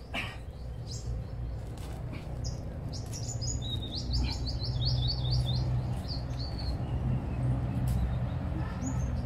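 A bird chirping, with a fast run of high chirps about three seconds in and scattered single calls, over a steady low rumble.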